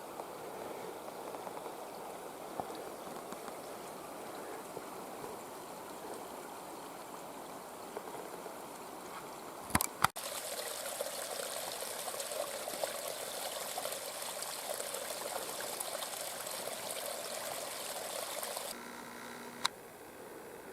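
Running water, like a small stream trickling, as a steady hiss. About ten seconds in there is a sharp click and the sound cuts to a louder, brighter rush, which drops back to a quieter hiss near the end.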